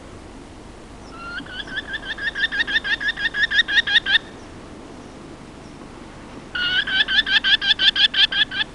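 Merlin calling: two rapid series of short, sharp repeated notes, about seven a second. The first series grows steadily louder over about three seconds. The second starts loud about two seconds after the first ends and runs for about two seconds.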